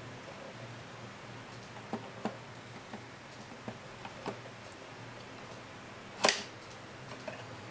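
Irregular light clicks and taps from the controls of a TOMYTEC 101-series cab-style N-scale sound controller being handled, with one sharper, louder knock about six seconds in, over a faint steady hum.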